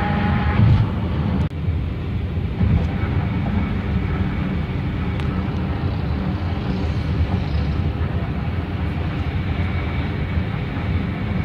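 Steady tyre and road noise of a car driving at highway speed, heard inside the car, a deep rumble with a hiss over it and a brief break about a second and a half in.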